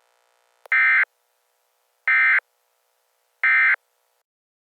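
Emergency Alert System end-of-message signal: three identical short bursts of SAME digital data tones, each about a third of a second long and about one and a half seconds apart, marking the end of the alert.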